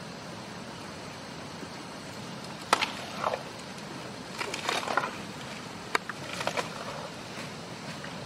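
Asian elephant feeding on leafy green fodder: two sharp snaps of stalks about three seconds apart, with spells of crackling, crunching chewing between and after them. Underneath is the steady rush of a river.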